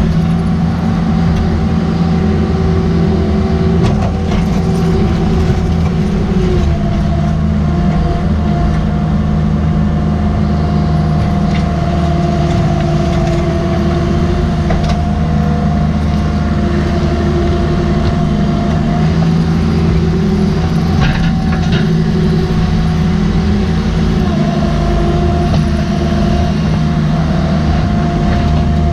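Cat 305.5E mini excavator running under digging load, heard from the cab: the steady diesel engine with a hydraulic whine that comes and goes as the boom and Engcon tiltrotator bucket work. A few sharp knocks of rock sound, one near 4 seconds and another near 21 seconds in.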